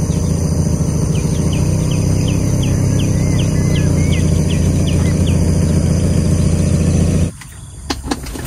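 Toyota Land Cruiser engine idling steadily, with a bird calling a run of short falling whistles over it for a few seconds. Near the end the engine sound cuts off suddenly, and a few light clicks and knocks follow.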